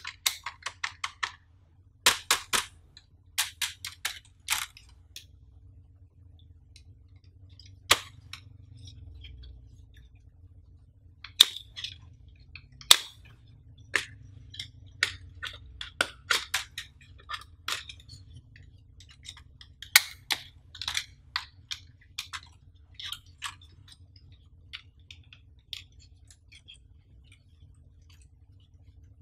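Hard plastic clicks, taps and snaps from handling and unfolding a folding plastic phone-screen magnifier stand with a flat lens panel: sharp clicks come one at a time and in quick clusters of three or four, with short pauses between.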